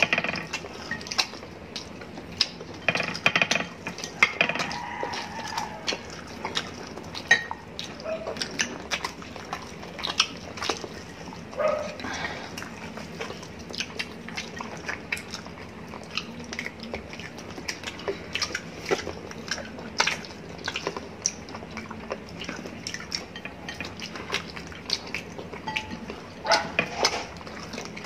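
Close-up eating sounds of spit-roasted chicken being eaten by hand: steady chewing and lip-smacking with many short smacks and clicks, and meat being pulled apart, with occasional clinks of glass bowls.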